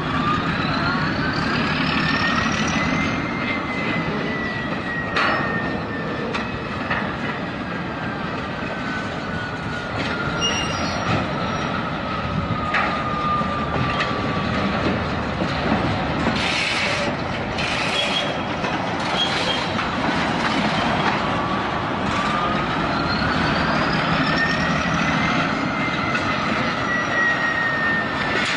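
Freight cars rolling slowly around a sharp curve in a rail yard, their steel wheel flanges squealing against the rail in long tones that rise and then slowly fall in pitch, twice, over a steady rolling rumble. A run of clattering knocks, wheels over rail joints and switch frogs, comes midway.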